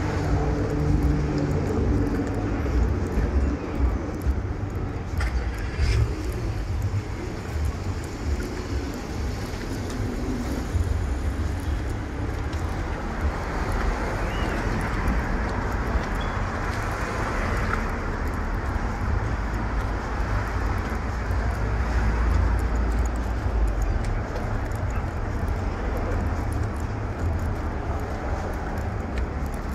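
Street traffic noise with a steady low rumble throughout. A vehicle swells past in the middle.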